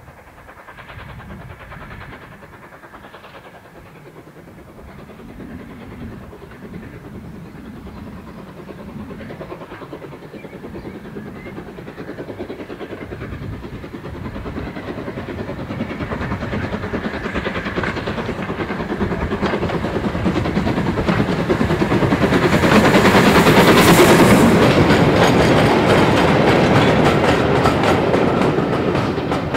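LMS Ivatt 2MT 2-6-2 tank engine working steam with a short freight train. Its exhaust beats grow steadily louder as it approaches, loudest about three-quarters of the way through as it passes close by. The wagons and brake van then clatter over the rail joints.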